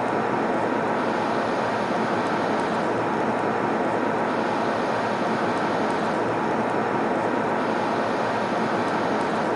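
Airplane cabin noise in flight: an even, steady rushing noise, heaviest in the low-mid range, that never changes.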